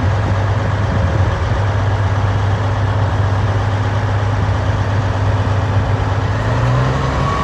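Cat D10T2 crawler dozer's C27 V12 diesel engine idling steadily, its speed rising slightly near the end.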